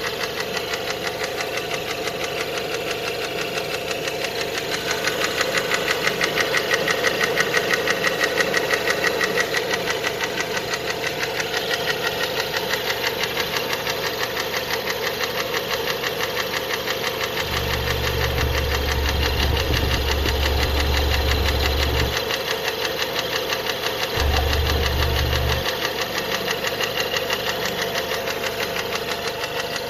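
Renault Megane 2 1.6 petrol engine running warm with a fast, steady knocking; the knock appeared after an oil leak. Two spells of low rumble come in past the middle.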